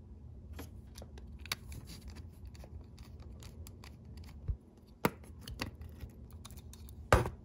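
Small plastic and metal parts of a 1963 Tri-Ang Davy Crockett model locomotive clicking and tapping as they are fitted back together by hand, with scattered light clicks and a louder knock near the end.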